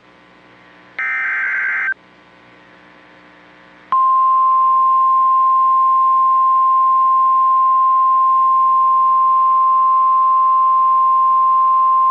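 NOAA Weather Radio emergency alert signal: a one-second buzzy burst of SAME digital header data near the start, then, about four seconds in, the steady single-pitched warning alarm tone, which marks a new warning being issued.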